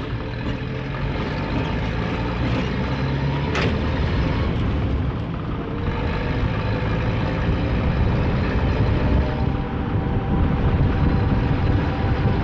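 Engine and road noise of a moving road vehicle, heard from on board, steady throughout. There is one sharp click a little over three seconds in.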